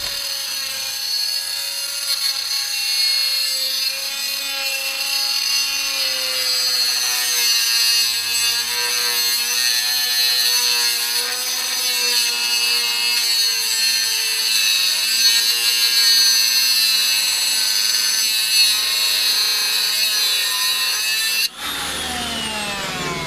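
A power cutting tool running under load as it cuts through a steel vehicle bumper, its pitch wavering as the load changes. It stops abruptly about twenty-one seconds in.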